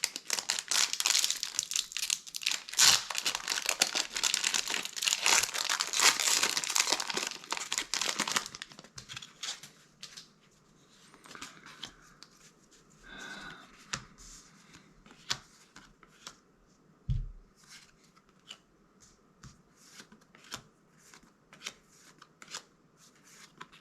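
Foil wrapper of a Magic: The Gathering booster pack being torn open and crinkled for about eight seconds, then quieter, scattered light clicks and rustles as the cards are handled.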